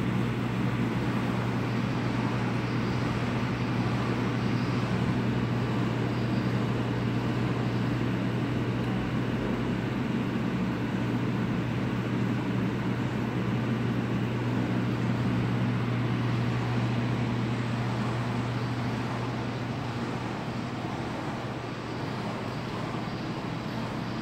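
Steady low hum with an even hiss over it: room machinery or equipment fans running.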